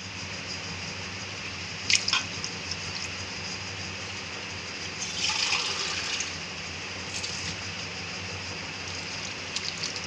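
Watery masala heating in a steel kadai on a gas burner: a steady liquid hiss and bubbling, with a few short clicks about two seconds in and near the end, and a louder swishing stretch around five to six seconds in.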